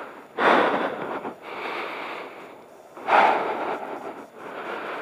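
Heavy breathing inside a motorcycle helmet, the breaths blowing straight onto the microphone as loud rushes of air about every three seconds, each starting sharply and fading over about a second.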